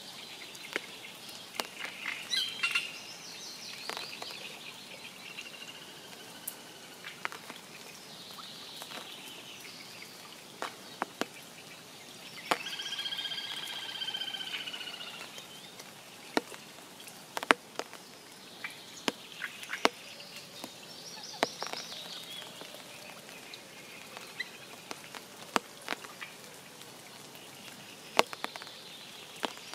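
Light spring rain: scattered single raindrops and drips ticking sharply, with birds singing throughout. One longer, steadier call stands out about halfway through.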